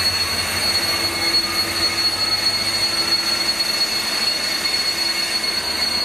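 Freight train of box wagons hauled by a Class 66 diesel locomotive rolling past through a curve, a steady noise of wheels on rail with a thin, steady, high-pitched wheel squeal.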